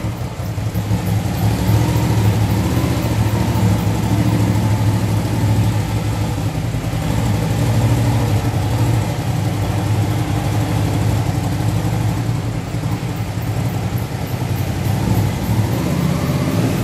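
Touring motorcycle engine running at low speed, a steady low hum that rises and dips a little as the bike creeps along on its deployed landing-gear wheels, echoing off the hard walls of a corridor.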